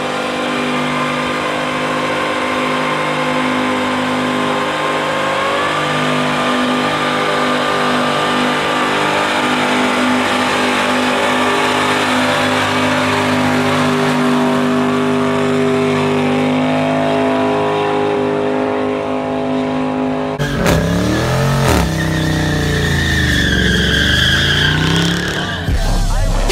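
An American muscle car doing a long burnout: the engine is held at high, steady revs while the rear tyres spin and screech, the revs rising a notch about five seconds in. About twenty seconds in it cuts to another car's engine revving up and down in sharp blips.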